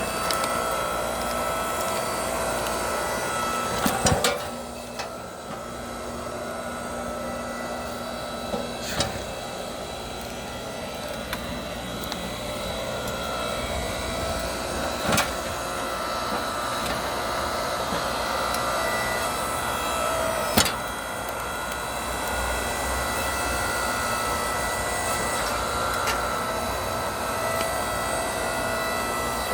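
Hydraulic log splitter running with a steady hum, a sharp crack of a log splitting about every five or six seconds.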